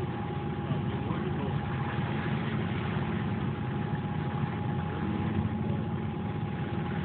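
Boat engine idling steadily: a constant low rumble with a thin, steady high tone over it.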